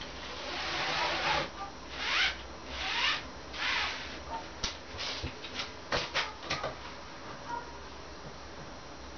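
Four scraping, rubbing strokes, then a quick string of sharp clicks and light knocks, as from hand work on the balcony floor timbers.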